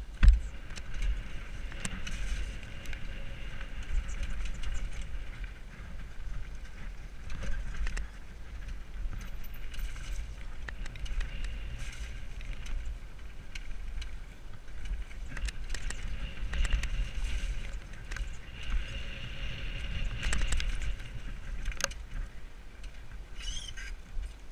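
Mountain bike descending a rocky dirt trail at speed: wind rumbling on a helmet-mounted microphone, tyres rolling over dirt and loose stones, and the bike rattling with many small clicks and knocks, one sharp knock right at the start.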